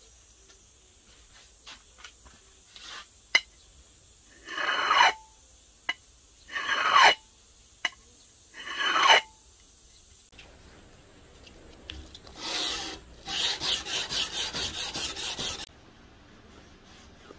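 Hardened steel scraped across a glass bottle in three slow strokes with a thin squeal, a scratch test of the freshly tempered blade's hardness. A few seconds later comes one more scrape, then a quick run of about ten short rasping strokes.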